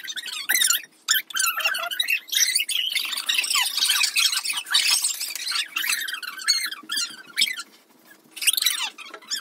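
Children squealing and shrieking with excitement, high-pitched and overlapping, with a brief lull about a second in and another near the end.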